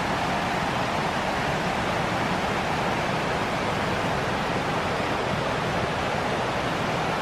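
Steady rush of a fast-flowing mountain creek tumbling over rocks.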